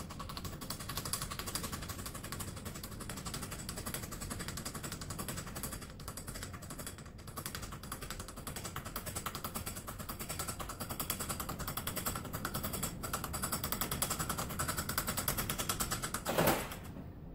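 A small hammer tapping a bearing and seal into a machined aluminium tube clamped in a bench vise: a rapid run of light metal-on-metal taps, with one harder knock near the end.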